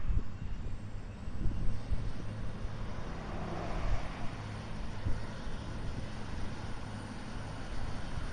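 V/Line VLocity diesel multiple unit passing close by, its underfloor diesel engines giving a steady low rumble.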